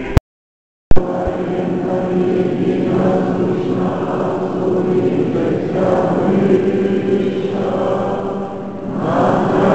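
Russian Orthodox church choir chanting in long, sustained phrases. Near the start the sound drops out for under a second, with a click at each edge of the gap.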